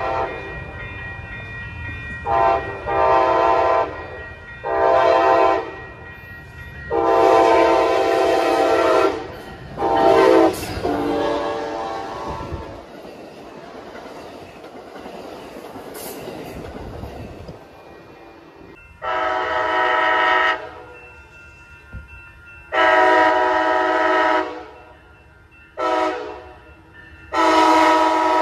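Passenger train horns sounding repeated long and short blasts at a grade crossing, over the low rumble of a train moving along the platform. In the second half a Coaster commuter train's horn sounds the standard crossing warning as it approaches: long, long, short, long.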